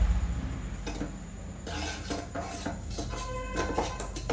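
Fork scraping and tapping against the ridged metal plates of an electric sandwich grill while butter is spread over them: a run of quick scrapes and clicks starting a little under two seconds in.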